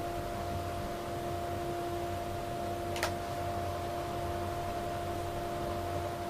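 A large woodworking jointer running without a cut: a steady motor hum with an even whine from the spinning cutterhead. A single sharp tick sounds about three seconds in.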